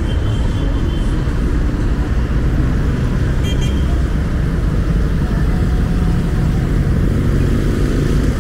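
Busy city street traffic: a steady, loud rumble of passing cars and other vehicles, with a brief high-pitched beep about three and a half seconds in.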